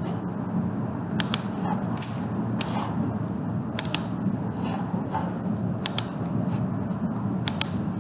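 Computer mouse clicks at irregular intervals, some in quick pairs, over a steady low background hum.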